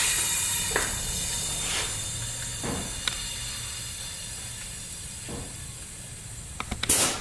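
Compressed air hissing steadily into a coil-spring air bag through its fill valve as the bag is inflated to raise the front suspension. The hiss slowly fades, with a few faint knocks, and a short louder burst of air comes near the end.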